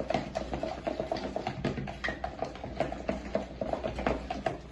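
A thick, wet slime mixture of glue, toothpaste and shredded toilet paper being stirred hard in a bowl: a quick, irregular run of short clicks, several a second.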